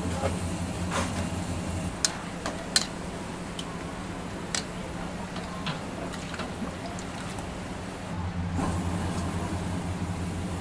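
Steady low roar of restaurant gas burners running high under aluminium pots, with a few sharp metal clinks of a ladle against a steel pot while thick tomato sauce is stirred. The roar drops back for a stretch from about two seconds in and comes up again near the end.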